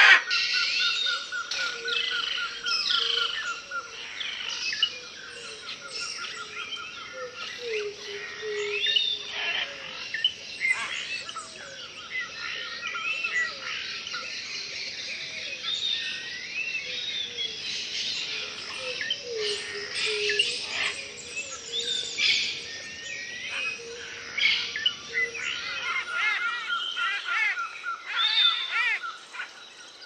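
A dense chorus of many wild birds chirping and calling over one another, with a steady rapid pulsing trill in the background and low repeated calls underneath. A short loud snap at the very start.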